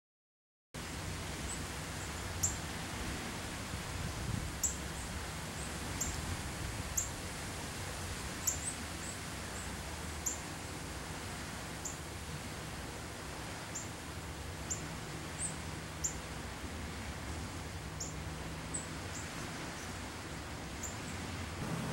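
Outdoor lakeshore ambience with a steady low hum under a soft noise bed, starting a moment in, and a small bird giving short, high, downward chirps about every second.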